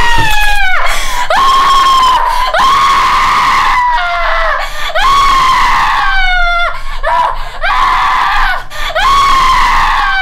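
A woman screaming over and over: long high shrieks, each held and then breaking and falling in pitch, with hardly a pause between them.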